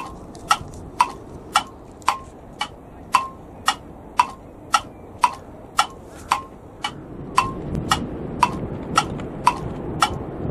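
Clock ticking, about two ticks a second in an even tick-tock. From about seven seconds in, a low rush of wind on the microphone grows underneath.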